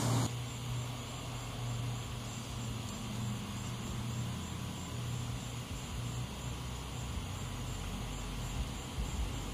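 Propane torch flame running with a steady low rumble, heating PVC. A brighter hiss cuts off just after the start.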